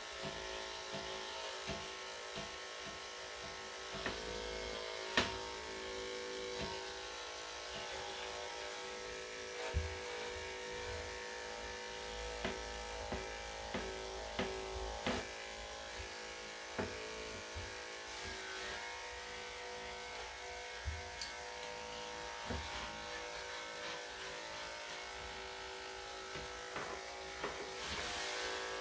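Electric dog grooming clippers fitted with a #5 blade running steadily as they shave a Shih Tzu's coat, a steady even-pitched hum with a few faint clicks now and then.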